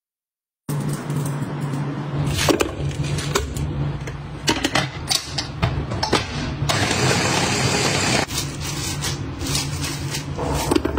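Electric meat chopper with a stainless-steel bowl running, its motor humming as it minces raw meat, with sharp clicks of the blades on the pieces. The sound starts about a second in, and a louder, harsher stretch comes about seven seconds in.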